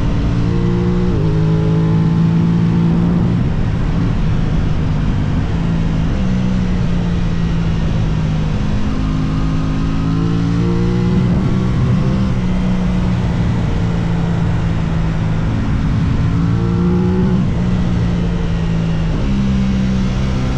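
Aprilia RS660's parallel-twin engine running under way, its note changing pitch in steps and rising with the throttle about halfway through and again near the end, over a steady rush of wind.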